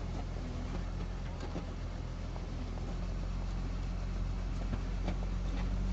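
Motor grader's diesel engine running steadily under load as it grades the road bed, growing a little louder near the end.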